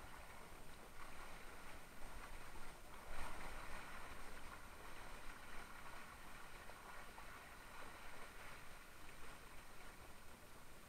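Water rushing and splashing along the hull of a Mistral Superlight windsurf board under sail, with a louder splash about three seconds in.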